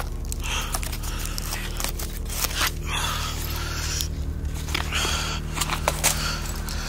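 Irregular scraping and crunching noises with scattered clicks, over a steady low hum.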